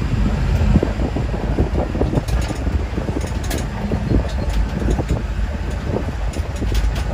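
Off-road vehicle driving along a rough dirt track, heard from inside: a steady low rumble of engine and tyres with scattered rattles and knocks from the bumps.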